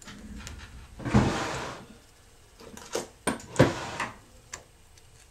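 Adhesive backing sheet being peeled off a Moshi Palmguard and handled against the laptop: a rustling crackle with a knock about a second in, then a few sharp clicks and another loud click and rustle about three and a half seconds in.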